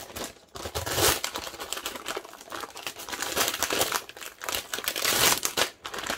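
Clear plastic wrapping crinkling and rustling as a roll of foam adhesive tape is unwrapped by hand, in irregular handling bursts that come and go.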